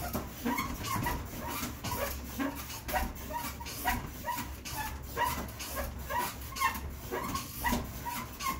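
Elliptical trainer in use: a steady rhythm of short squeaks and thumps, about two a second, over a low hum.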